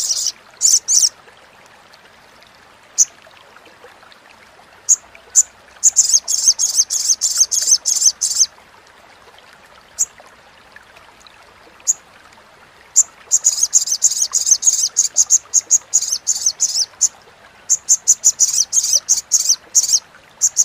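Olive-backed sunbird giving its rapid, high-pitched chattering call: scattered single sharp chips, then fast runs of notes about six seconds in and again through much of the second half.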